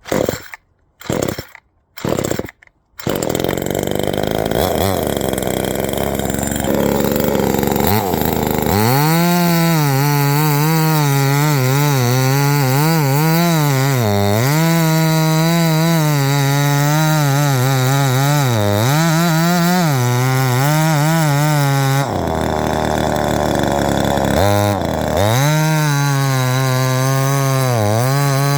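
Small two-stroke top-handle chainsaw cutting wood: three short bursts in the first three seconds, then it runs continuously, its engine note repeatedly dipping and recovering as it bogs under the load. The saw cannot take much pressure in the cut.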